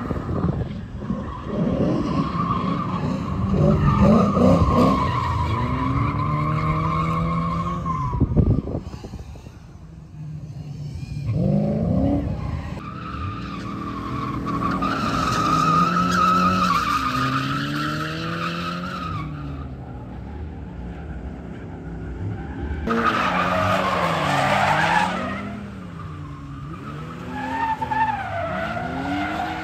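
Scion FR-S drifting: its flat-four engine revs up and down while the rear tyres squeal with a steady high screech through long slides, across several separate passes.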